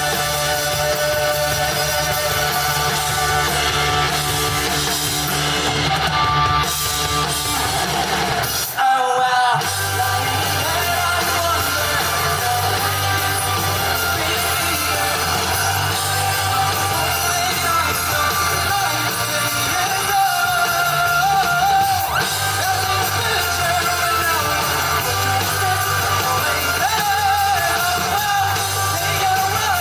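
Live rock band performance with a singer, electric guitars, bass and drums, in a large hall. About nine seconds in, the band drops out for a moment and then comes back in.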